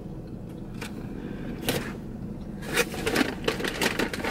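Handling of takeout food: paper crinkling and a fork scraping and clicking in the food container. The clicks and rustles come in irregular clusters that grow busier in the second half, over a steady low hum.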